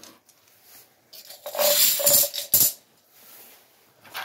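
Metal hand tools clinking and rattling as a hand sorts through a tool tray: one spell of clatter starting about a second in and lasting over a second, and another starting near the end.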